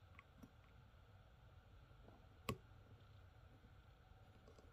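One sharp click about halfway through, with a few faint clicks around it, as fingers work open the hinged nose cargo door of an Airbus BelugaXL scale model.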